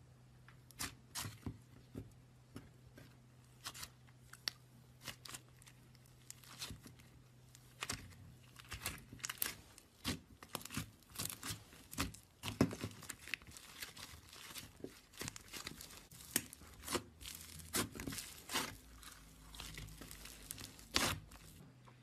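Slime squished, pulled and torn apart by hand: a run of sharp crackles and sticky pops. They come thicker about a third of the way in, as a fluffy, textured slime is torn into pieces.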